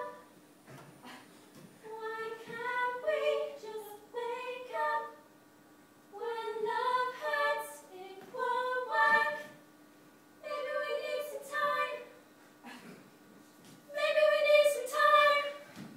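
A woman singing in a series of short, held melodic phrases with brief pauses between them.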